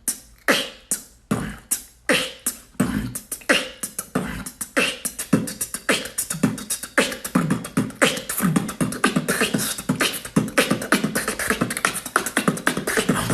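Solo beatboxing: a man making kick, snare and hi-hat sounds with his mouth, with short pitched vocal effects mixed in, getting faster and denser as it goes.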